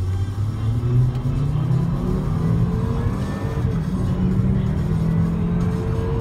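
Volvo S80 2.4T's turbocharged five-cylinder engine under hard acceleration, heard from inside the cabin. The revs climb, drop once at a gearshift partway through, then climb again.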